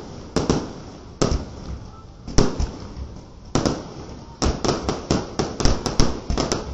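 Aerial fireworks bursting: single bangs a second or so apart, then a fast run of many bangs from about four and a half seconds in, each fading away after the crack.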